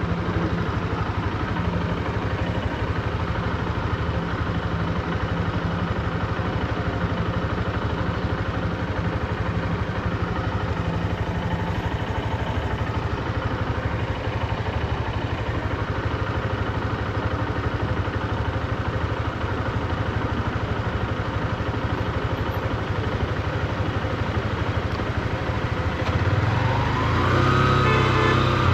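Honda CB125F's 124 cc air-cooled single-cylinder engine running steadily at low revs, as the new engine is being run in. About two seconds before the end it gets louder and rises in pitch as the bike accelerates.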